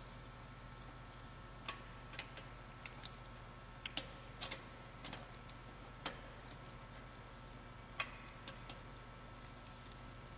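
Scattered sharp metallic clicks and clinks of a lug nut wrench on the lug nuts as the spare wheel's nuts are tightened, a dozen or so at uneven spacing, with the loudest about six and eight seconds in, over a faint low steady hum.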